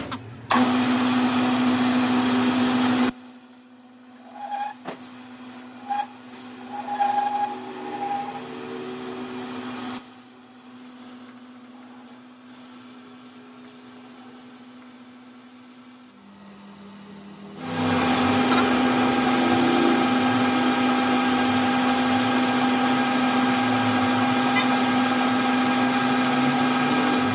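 Metal lathe running with a steady hum while a tool turns a steel workpiece. Through the middle stretch the cut comes and goes, with a thin high whine in short runs. About two-thirds of the way in, the hum dips and drops in pitch, then comes back steady.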